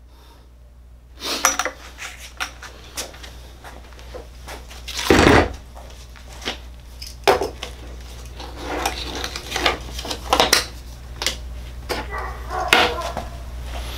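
Handling noises of a cordless cut-off saw and its packaging on a workbench: irregular clicks, knocks and clattering of hard plastic and metal parts, with one louder knock about five seconds in.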